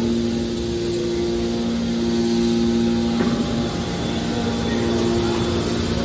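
Hydraulic power unit of a heavy-duty scrap metal baler running: a steady machine hum with a two-note whine, and a single knock about three seconds in.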